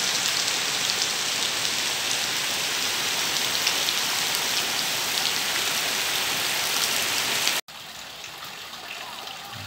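Heavy rain pouring onto ground, puddles and runoff, a dense steady hiss with fine spattering drops. About seven and a half seconds in it cuts off abruptly and comes back much quieter, still rain with scattered drops.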